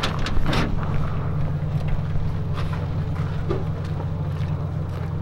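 BMW straight-six engine idling with a steady low throb, likened to a fishing boat. A few short clicks sound in the first half second as the hood is handled.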